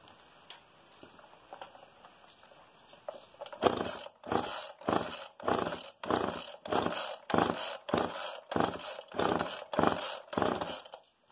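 Homelite XL two-stroke chainsaw being pull-started: about a dozen quick, regular tugs on the recoil starter cord, each a short rasping crank of the engine, and it does not catch. The saw is hard to start.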